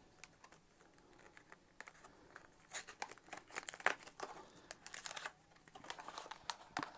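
Faint, irregular crinkling and tearing of packaging as a box of baseball cards is opened by hand, with the busiest stretch in the middle.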